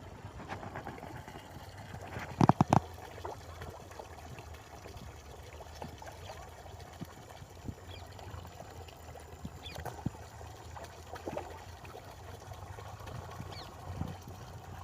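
Pond water with scattered small splashes and plops as murrel (snakehead) fish snap floating feed pellets at the surface, with a louder burst of splashing about two and a half seconds in.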